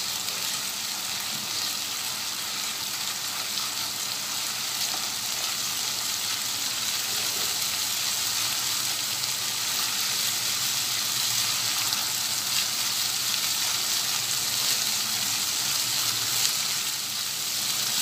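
Ground onion, garlic, cumin and mustard paste sizzling steadily in hot oil in a non-stick pan while being stirred with a silicone spatula. This is the paste being fried down (kosha) in the oil.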